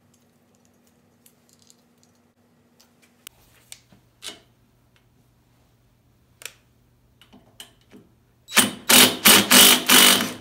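Cordless drill/driver running in several short, loud bursts near the end, driving a screw to fasten an LED light to a tractor's steel post. Before it come light clicks and taps as the light and screw are handled.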